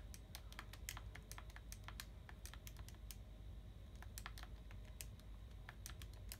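Keys being pressed on a Texas Instruments TI-84 Plus Silver Edition graphing calculator as a long sum is entered: a quick, uneven run of faint clicks, about four a second.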